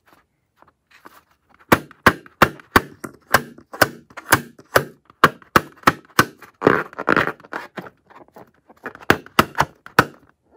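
Fingernails tapping on a taut filled rubber balloon: a brisk series of sharp taps, about two to three a second, with a stretch of rubbing around the middle and a short pause before a last few taps near the end.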